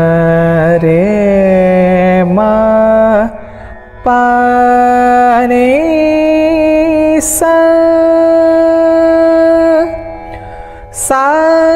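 Solo male voice singing the ascending scale of raga Desh in slow, long-held notes, climbing step by step with short gliding ornaments between notes. Two brief pauses for breath break the line, about three seconds in and near the end.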